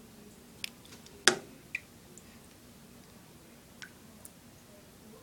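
A few light clicks and taps from a hand handling a wet first-generation iPod touch, the loudest about a second in.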